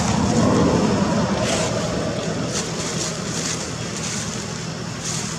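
Steady outdoor background rumble, louder for the first second, with a few brief rustles of dry leaves as monkeys shift about on the leaf litter.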